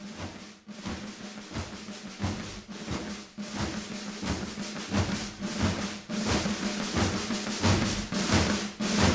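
Hard rock song intro: a heavy, even drum beat over a steady low note, growing steadily louder.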